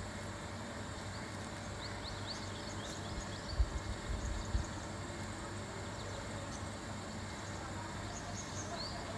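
Outdoor ambience: steady background hiss with faint short bird chirps, a few of them together about two to three seconds in and again near the end. A few dull low thumps come about halfway through.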